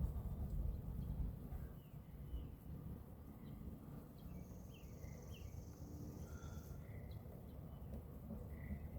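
Outdoor ambience: birds chirping in short calls over a low rumble of wind noise. A steady high buzz like an insect runs for about two seconds in the middle.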